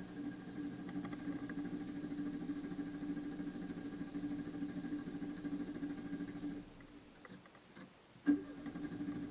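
Renault car engine being cranked by its starter without catching: a long crank that stops about six and a half seconds in, then a second crank starting sharply near the end.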